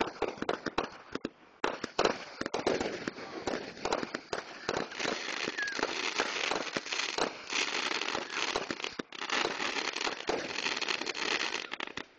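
Fireworks going off in a rapid barrage: many sharp bangs and pops merging into dense crackling, which stops abruptly near the end.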